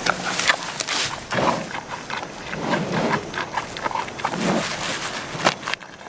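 Animal sounds: a run of short, rough, noisy calls and snuffles mixed with sharp clicks and knocks, repeated irregularly throughout.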